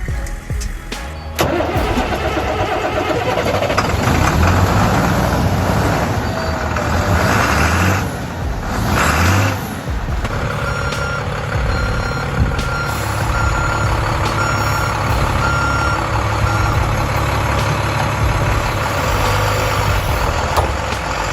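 A vehicle engine running and revving under load, with a short high beep repeating evenly for several seconds from about ten seconds in.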